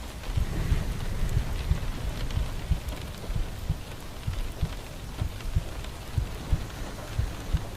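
Steady rain falling, with irregular dull thuds of drops hitting a nearby surface under a fine patter.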